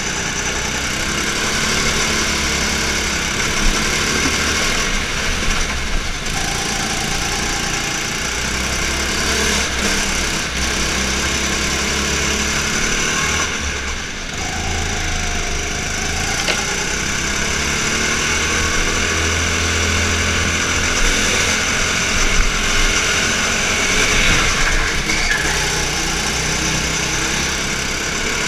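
Go-kart's small petrol engine running hard as the kart laps, its note rising and falling through the corners. It eases off briefly about halfway through, through a tight hairpin.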